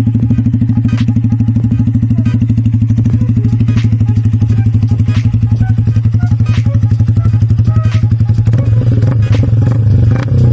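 Yamaha R15 V3's single-cylinder four-stroke engine idling through a Kawahara Racing aftermarket exhaust, with a rapid, even pulsing note. About eight seconds in, the note grows louder and rougher.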